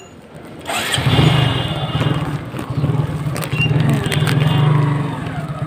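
A motor vehicle engine running close by. It comes in loudly about a second in, then runs on steadily as a low rumble.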